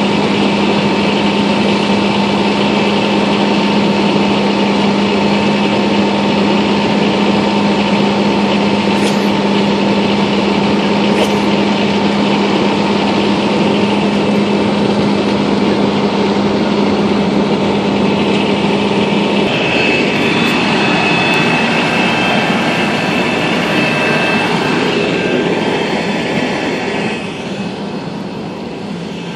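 Steady engine drone with a constant low hum, the sound of a fire engine running its pump to feed charged hose lines. About two-thirds of the way through, the hum stops and a lighter, hissier noise takes over.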